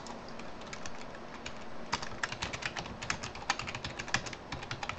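Typing on a computer keyboard: a quick run of keystroke clicks, sparse at first and coming thick and fast from about two seconds in.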